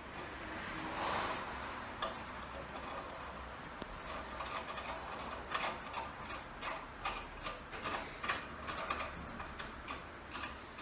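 Milking machine pulsator clicking in a steady rhythm, about two to three clicks a second, starting about four seconds in, over the low hum of the running vacuum pump. A short rush of noise comes about a second in.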